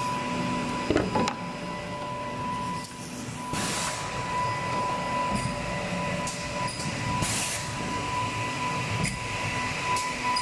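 High-speed edge banding machine running, a steady mechanical hum with a constant high whine. Short hisses and clicks break in now and then, the longest hiss about three and a half seconds in.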